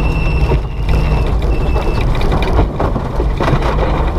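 Rally car at speed heard from inside the cabin: engine and drivetrain running hard with a high gearbox whine that stops about halfway through, over constant rattles and knocks from the car working over a rough stage road.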